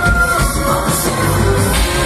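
Live rock-opera music from a stage show with a band, heard loud and steady from the audience seats in a large hall.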